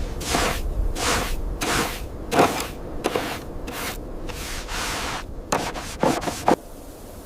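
Rhythmic scraping strokes through sand, about one and a half a second, with a quick run of sharper strokes near the end before they stop.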